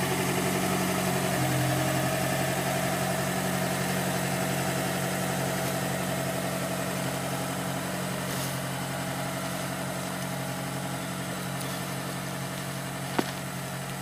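GAZelle van's engine running steadily, heard from inside the cab, slowly growing quieter. A single brief click near the end.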